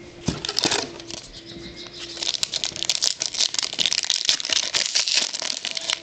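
Trading-card pack wrapper crinkling as it is torn open and handled: a short crackle just under a second in, then dense rustling from about two seconds in.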